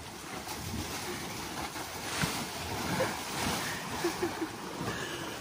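Water splashing and churning as an African elephant wades through shallow river water, the splashing swelling and easing with her steps.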